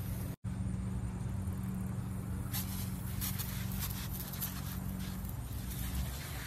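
A steady low mechanical hum, with short hissing bursts from a garden pump sprayer's wand starting about two and a half seconds in.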